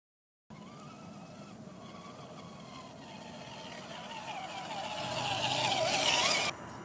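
Axial SCX10 Deadbolt radio-controlled crawler driving, its electric motor and gears whining with a pitch that wavers as the throttle changes. It starts abruptly about half a second in, grows steadily louder, and cuts off suddenly near the end.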